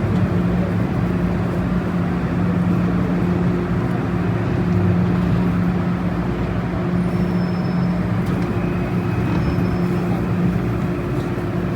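Metro-Cammell M-Train electric multiple unit running between stations, heard from inside the car: a steady rumble of wheels on rails with a constant motor hum. Faint thin high whines come in over the second half.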